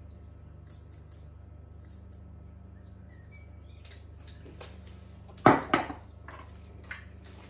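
Kitchen utensils and a mixing bowl clattering while flour and ground almonds are weighed out: light scattered clicks, then two loud sharp knocks a little past halfway through.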